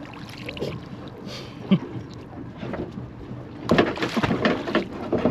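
Knocks and rattles aboard a small boat over a steady hiss of wind on the microphone. There is one sharp knock early, then near the end a burst of rapid, loud knocking and clattering.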